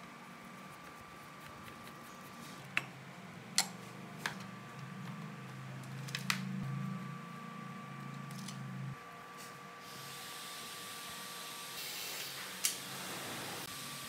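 Scattered sharp clicks and knocks of a screwdriver, screws and circuit boards against the sheet-metal chassis of a vintage Sony amplifier as it is taken apart by hand, with a low hum through the middle few seconds.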